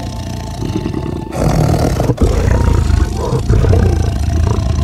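Lion roaring, deep and pulsing, growing louder about a second and a half in, with a brief break just after two seconds.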